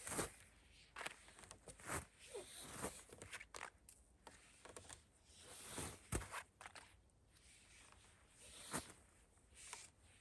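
Quiet, irregular rustling with scattered crunches and clicks, the sound of a person moving about and handling gear at camp.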